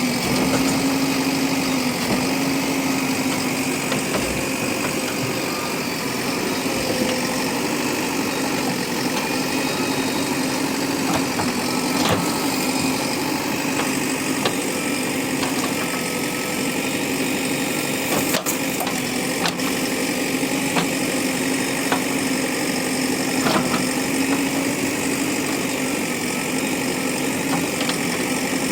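JCB backhoe loader's diesel engine running steadily, with a few sharp knocks now and then.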